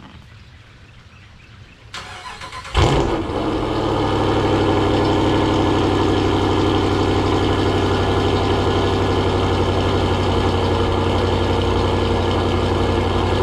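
Cold start of a modified 5.7-litre Hemi V8 with CNC-ported heads: the starter cranks briefly about two seconds in, the engine catches with a loud burst, then settles into a steady idle.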